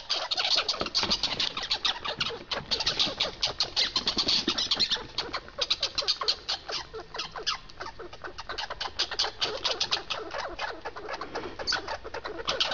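Red squirrel chattering: a fast run of sharp, scolding clicks in spurts, with a couple of short lulls.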